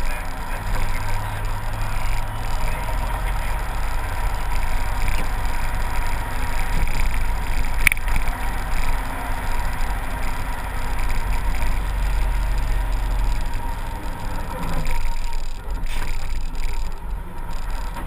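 A heavy engine running steadily, with a deep rumble and a faint steady whine over it. There is one short sharp click about eight seconds in.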